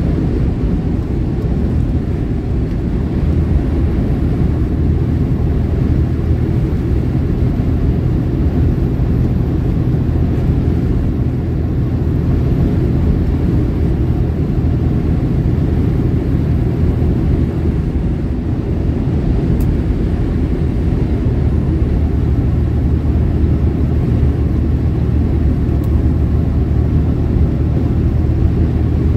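Semi truck's diesel engine and tyres, a steady low drone heard inside the cab while cruising at highway speed.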